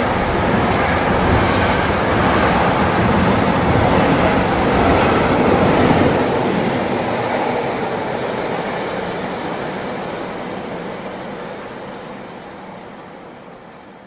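A train running past with a steady rail rumble. It is loudest about six seconds in, then fades steadily away into the distance.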